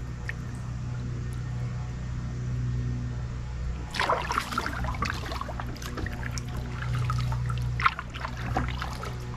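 Kayak paddle strokes, with the blade dipping, splashing and dripping water, about four seconds in and again near eight seconds. A steady low engine hum from a distant lawnmower runs underneath.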